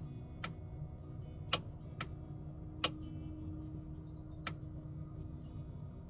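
A 40 amp automotive relay clicking five times at irregular intervals, each click sharp and short. Every click is the relay snapping open or shut as its momentary switch is tapped on the control panel's phone app.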